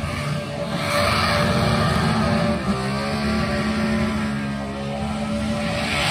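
Holden VH Commodore's 358-cubic-inch NASCAR V8 held at high revs during a burnout, the note wavering with the throttle and getting louder about a second in.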